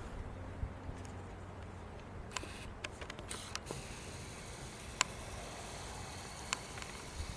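A scatter of sharp, short clicks over a low, steady wind rumble: a quick run of clicks a couple of seconds in, then two single ones a second or so apart.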